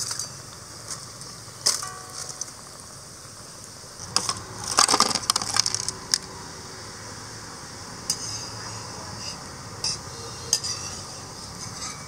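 Steel skimmer and strainer clinking and scraping against the kadai and a plate as fried bondas are lifted out of the oil and set down. There are a few scattered knocks, with a busier clatter about four to six seconds in, over a steady low hiss.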